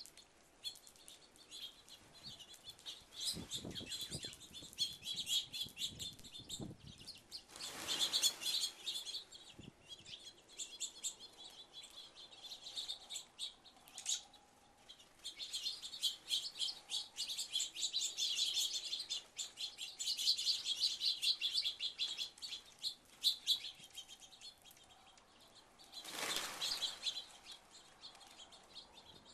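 A flock of small feeding songbirds chirping and twittering in a dense, busy chatter, with two whooshing rushes of many wings, one about eight seconds in and one near the end.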